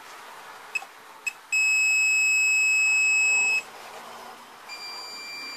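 Fluke 177 digital multimeter beeping as its probes touch an LED chip's solder pads: two brief chirps, then a steady high beep of about two seconds, and a fainter beep near the end. The beep signals a near-zero reading across the chip, which the repairer takes for a short from a bad solder joint.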